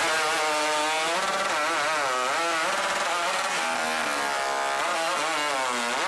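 Hot saw (a racing chainsaw with a large two-stroke engine) running flat out through a log. Its pitch dips and recovers several times as the chain bites, and it stops abruptly at the end.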